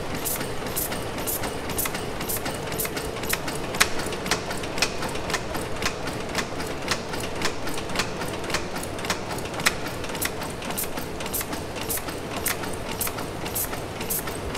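1904 Sulzer tandem-compound steam engine running steadily, its moving parts giving a quick, even clicking of several ticks a second over a continuous mechanical running noise.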